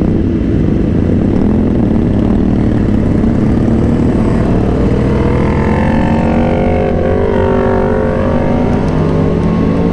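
Honda CBR1000RR-R inline-four sportbike engine running on the move under a steady rumble of road noise. About halfway through its pitch climbs as the bike accelerates, then levels off near the end.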